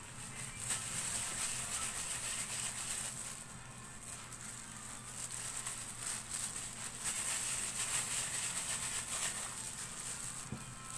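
Plastic food-handling gloves crinkling and rustling as hands knead and squeeze a sticky mix of graham crumbs and condensed milk, with soft squelches of the dough.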